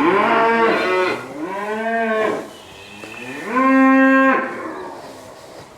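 Cattle mooing: three loud moos, the first two rising and falling in pitch, the third held at a steady pitch and ending about halfway through.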